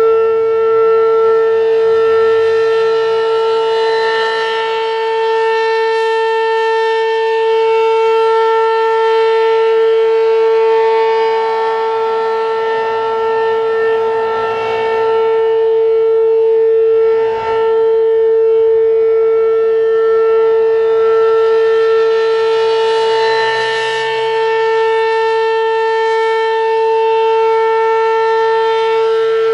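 ASC RM-127 outdoor warning siren sounding a steady tone for its monthly test. The pitch holds level while the sound swells and fades about every ten seconds.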